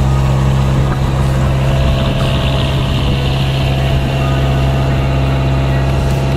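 Fishing boat's engine running steadily as the boat cruises, with water rushing along the hull, loudest around the middle.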